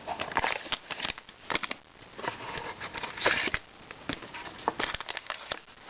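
Product packaging being handled and opened by hand: a busy run of crackles, clicks and scrapes from the box and its wrapping.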